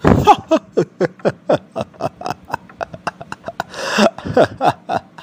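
A man laughing hard: a long run of quick ha-ha bursts, each falling in pitch, with a breathy, wheezing stretch about four seconds in.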